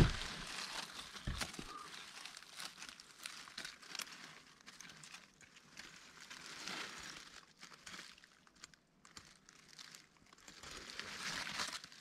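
Dry fallen leaves and undergrowth rustling and crackling as someone moves through the leaf litter, with irregular small snaps. The crackling thins out for a few seconds after the middle and picks up again near the end.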